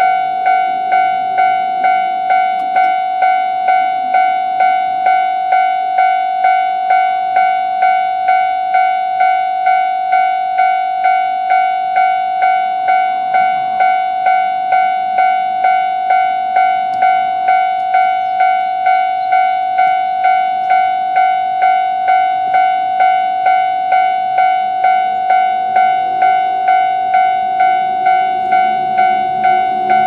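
Railway level-crossing warning bell ringing continuously in a fast, even, repeating pulse of a single bright tone, the sign that a train is approaching the crossing.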